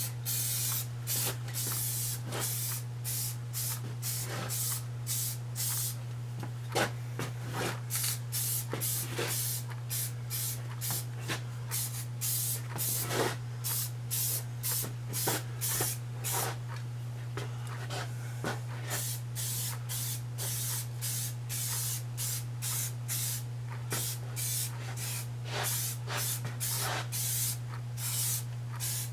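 Aerosol spray-paint can spraying in a rapid series of short hissing bursts, one or two a second, with a few longer sprays, over a steady low hum.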